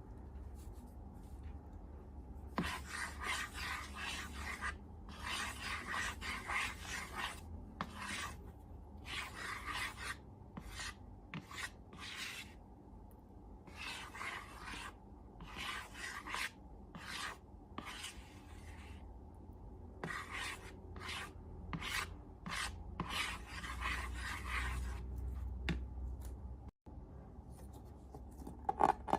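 Repeated rasping, rubbing strokes in bursts of one to three seconds with short pauses between them, from slime materials being worked by hand, over a low steady hum.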